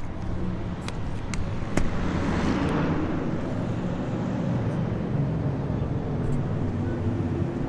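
City street traffic passing below, a steady rush of cars with one vehicle swelling louder as it goes by about two seconds in. A few sharp clicks sound in the first two seconds.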